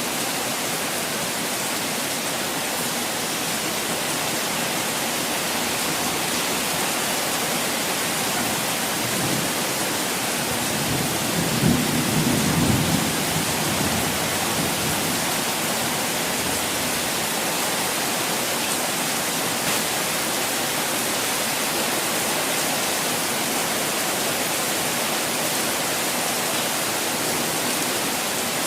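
Steady hiss of falling water, like heavy rain, without a break. About ten seconds in a low rumble swells for a few seconds, loudest just past the middle of it, then fades back into the hiss.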